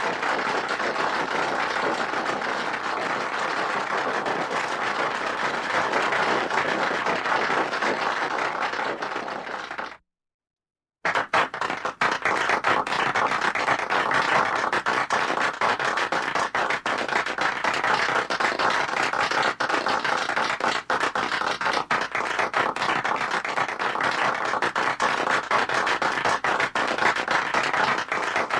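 Applause from a medium-sized crowd, many hands clapping steadily. It breaks off about a third of the way through for about a second of dead silence, then resumes at the same strength.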